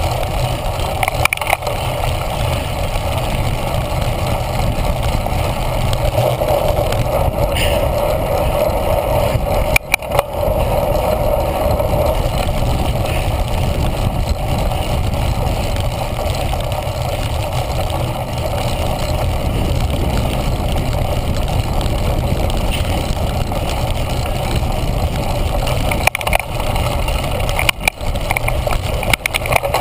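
Steady rumble of a cyclocross bike's tyres rolling fast over grass, mixed with wind rushing over a handlebar-mounted GoPro Hero 1. A few sharp knocks come from jolts, one about ten seconds in and a couple near the end.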